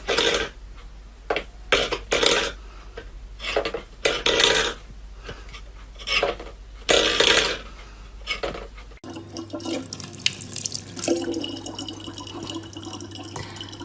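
Stainless steel bowl scraped and knocked on a wooden floor by a cat's paw, in about eight short bursts. About nine seconds in, a thin stream from a tap trickles steadily into a plastic water bottle over a low hum.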